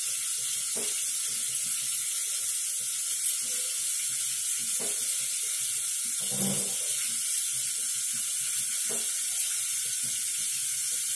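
Tap water running steadily into a sink, with brinjal slices sizzling in oil under a lid on the stove, and a few soft knocks.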